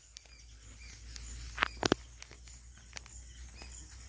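Footsteps crunching through grass and dry stalks on a field path, with a few sharp snaps near the middle. Insects chirp faintly in the background.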